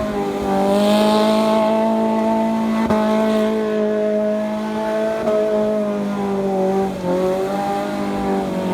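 Off-road 4x4's engine held at high revs, its pitch steady with small wavers and a brief dip about seven seconds in.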